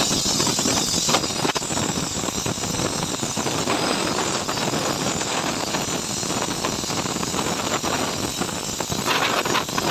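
Gas welding torch flame hissing steadily while it heats and welds a crack in an aluminium alloy wheel.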